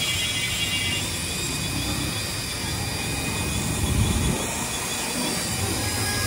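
Several toy RC helicopters' small electric motors and rotors whirring together at once, a steady buzzing whine. A low rumble swells about four seconds in.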